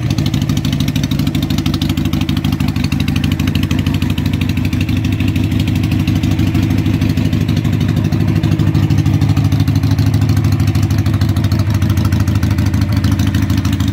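Harley-Davidson Sportster 883's air-cooled V-twin engine running steadily at idle.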